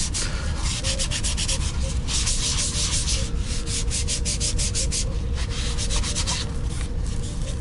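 Hand sanding of a primed plastic prop body with an abrasive pad, in quick back-and-forth rubbing strokes that smooth the primer ahead of painting.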